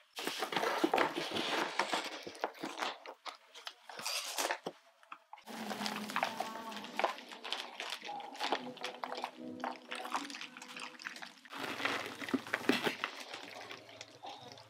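Gloved hands handling a plant's fibrous root ball and loose potting soil, setting it into a plastic pot: a steady run of crumbly rustling and crunching. Faint background music comes in about halfway through.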